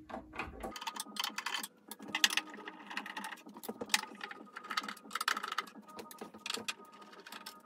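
Phillips screwdriver backing screws out of a mixing console's plastic side panel: a quick, irregular run of small clicks and scrapes, with screws set down in a metal magnetic tray.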